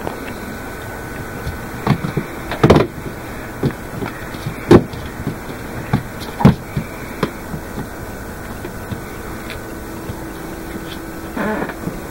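A kitten and a golden retriever batting at a cat-teaser pompom: irregular sharp taps and thumps, several between about two and seven seconds in and a quick little cluster near the end, over a steady low hiss.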